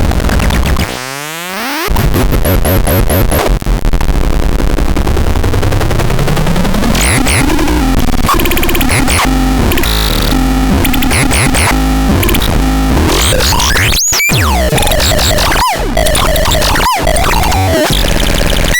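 Harsh electronic noise from the Noiseratu noise synth: dense, distorted tones with many swooping pitch glides and buzzing layers, dipping briefly about a second in and cutting out for a split second a few times near the end.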